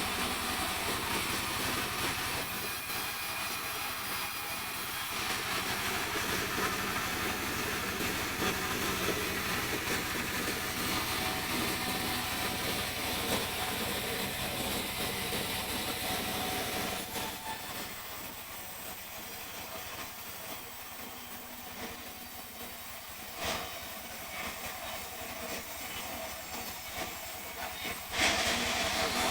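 Sawmill saw running through a mahogany log: a steady mechanical hum with a hissing cutting noise, which drops somewhat a little past halfway, with a sharp knock near the end.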